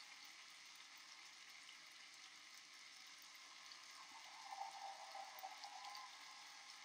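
Near silence: a faint, even crackling hiss, with a faint wavering tone for about two seconds starting about four seconds in.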